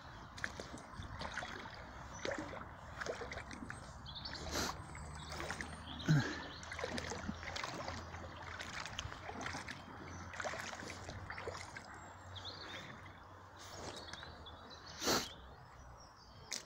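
Black Barbour rubber wellington boots wading through a shallow stream: irregular sloshing, splashing steps over running water, with a louder splash about six seconds in and another sharp, louder sound near the end.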